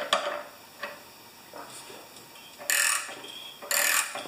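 Ratchet wrench clicking as a fitting on a pressure washer pump is tightened: a sharp click at the start, a few light clicks about a second in, then two short bursts of rapid clicking about a second apart near the end.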